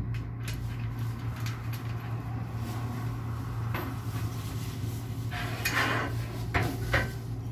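Scattered knocks, clatter and rustling as bed-frame parts and packaging trash are handled and gathered, over a steady low hum.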